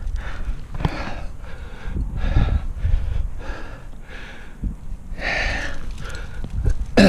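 A climber breathing hard and fast from exertion, a heavy breath every half second to a second, mid-way up a strenuous crack climb.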